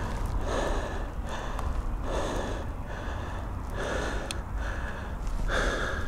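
A man panting hard, out of breath from pedalling a heavy e-bike: quick, loud breaths in and out, one after another. A steady low rumble runs underneath.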